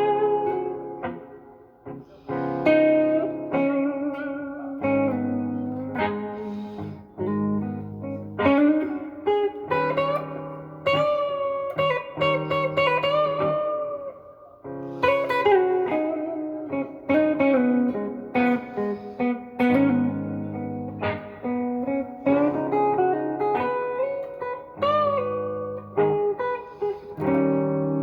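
Gibson SG Special electric guitar on the neck pickup, played through a Fender Blues Junior IV with overdrive, delay and reverb: slow blues lead lines in A♭ minor with string bends and vibrato, over sustained low chords.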